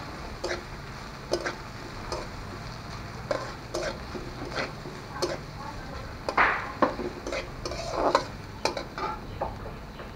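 Metal spatula scraping and knocking against an aluminium karahi as sliced onions and green chillies are stirred, frying in a little oil with a light sizzle. The scrapes come irregularly, a few times a second, the strongest about six and eight seconds in.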